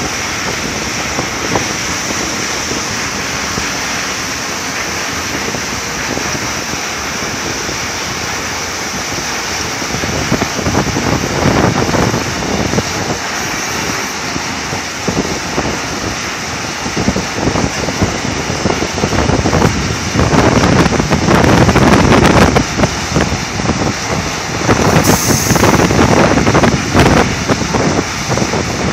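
Old Mercedes-Benz dump truck's diesel engine running as the truck reverses, surging louder from about a third of the way in and loudest over the last third, with wind buffeting the microphone. Near the end there is a brief high hiss.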